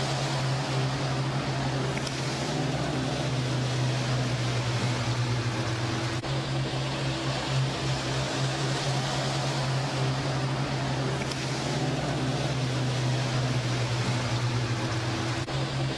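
A boat's outboard motors idling with a steady low hum, over a constant hiss of wind and water on the microphone.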